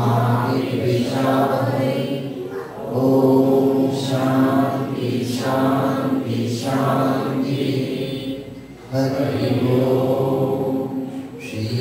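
A man's voice chanting a devotional prayer into a microphone, in long sustained sung phrases with short pauses for breath between them.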